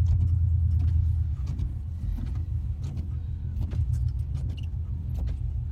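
A car driving slowly over rough off-road ground: a steady low rumble of engine and tyres, loudest for about the first second and a half, with scattered knocks and rattles as it goes over bumps.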